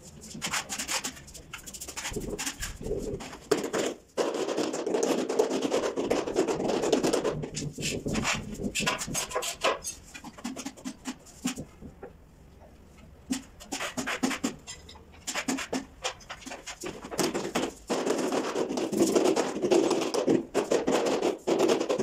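A steel trowel scrapes and spreads mortar across the back of a ceramic wall tile in short, repeated strokes. Near the end, a mallet taps the tile into place on the wall.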